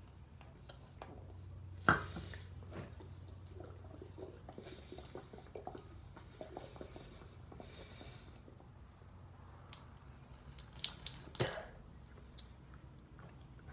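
Close-up mouth sounds and breaths with scattered small clicks, and handling knocks against the phone, the sharpest about two seconds in and a cluster around eleven seconds.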